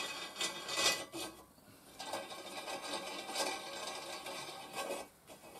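Home-made wing nuts being spun down the threaded bolts on a DIY sheet metal bender's clamp bar: metal rasping and scraping on metal in a series of short strokes.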